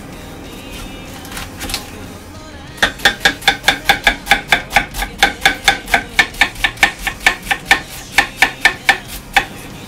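Misono UX10 chef's knife shredding red cabbage on an end-grain wooden cutting board: a fast, even run of chopping knocks, about five a second, each with a slight metallic ring. It starts about three seconds in after a couple of quieter cuts and stops just before the end.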